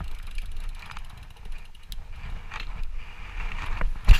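Mountain bike coasting down a rough dirt trail: the freehub ratchet ticking rapidly and the chain and frame rattling over the ground, with a loud knock and clatter about four seconds in as the bike hits a bump.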